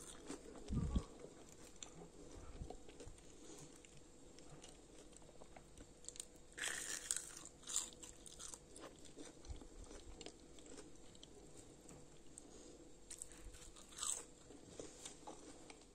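A person biting into and chewing crispy fried potato sticks coated in sesame seeds, with faint, scattered crunches. The loudest bites come about seven seconds in and again near the end.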